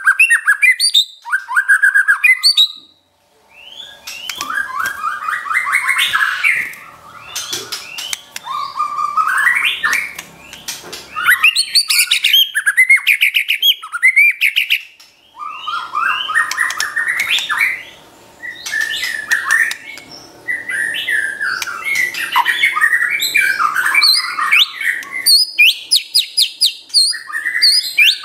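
White-rumped shama (murai batu) singing continuously, a rich varied song of whistled notes, rising sweeps and fast staccato rattling runs in the 'trotol' style. The song breaks off briefly about three seconds in.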